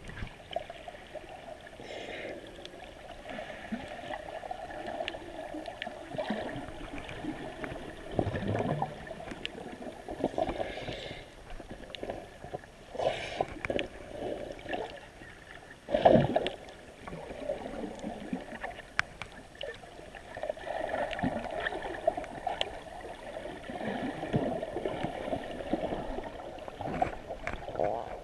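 Water sloshing and gurgling as heard by a camera held underwater: an uneven, muffled swell with scattered small clicks, and one louder thump a little past halfway.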